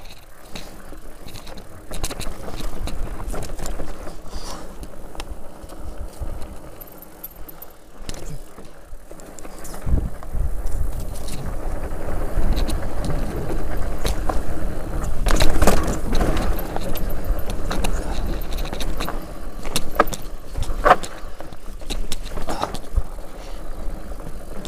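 Enduro mountain bike rattling down a rocky trail: tyres crunching over gravel and rock, with frequent knocks and clatters from the bike. It gets louder from about ten seconds in.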